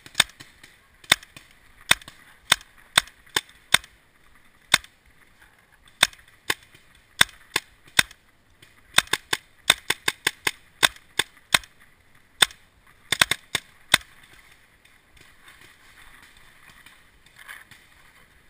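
Paintball markers firing: dozens of sharp pops in irregular single shots and quick volleys, thickest around ten and thirteen seconds in, stopping about fourteen seconds in.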